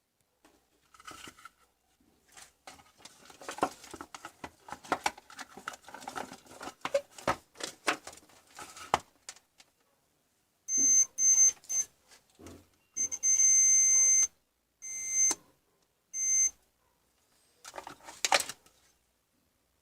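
Rapid clicks and light knocks of small parts being handled, then an electronic beeper sounding five times in beeps of uneven length, some brief and one over a second long. A sharp click comes near the end.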